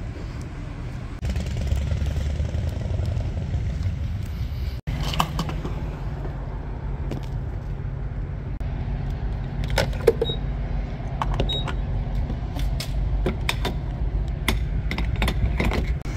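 Steady low rumble of vehicle engines and road traffic. In the second half come a run of sharp clicks and knocks and two short high beeps.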